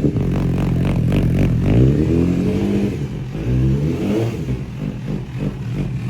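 MV Agusta F4 312's inline-four engine through an aftermarket exhaust, revved up and back down a couple of times, then settling to idle about four seconds in.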